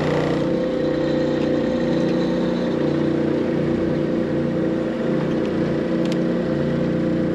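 A small engine on a boat running steadily at low speed, an even hum with a slight pulsing rise and fall.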